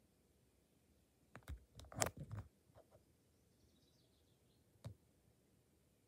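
Near silence broken by a quick cluster of sharp clicks and taps about two seconds in, and a single click near the end.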